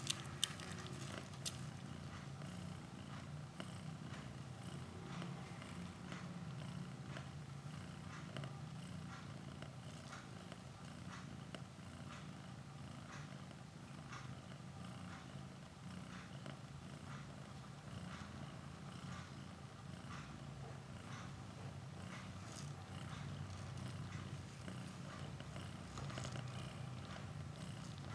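Mother cat purring steadily and softly while nursing her newborn kittens, with faint scattered clicks over the purr.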